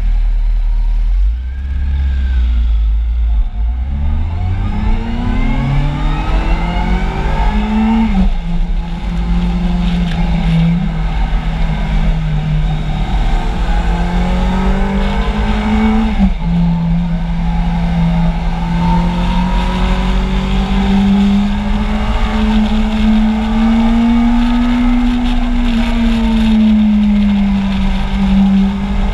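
Kawasaki Z750 inline-four engine idling, then pulling away and revving up through the gears. The pitch climbs in each gear and drops sharply at upshifts about eight and sixteen seconds in, then holds at higher revs with gentle rises and falls.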